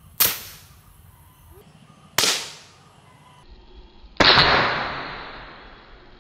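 Two sharp air-pistol shots about two seconds apart, each with a short ringing tail, then a louder bang about four seconds in that dies away slowly over nearly two seconds as the balloons are hit.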